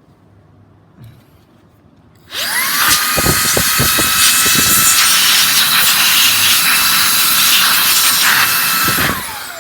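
Makita GA027G 40V cordless angle grinder switched on about two seconds in: its motor spins up with a quick rising whine, runs loud and steady for several seconds, then winds down with a falling pitch near the end.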